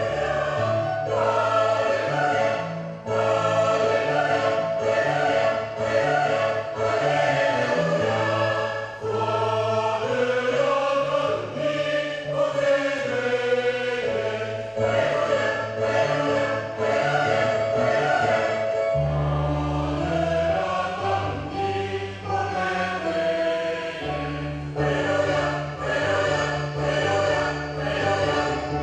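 Choir singing a hymn over held low accompaniment notes that change every second or two.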